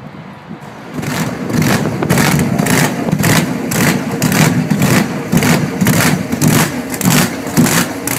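Supercharged V8 hot rod with open zoomie headers, revved in quick throttle blips starting about a second in. Each blip gives a loud blast, about two or three a second, as flames shoot from the headers.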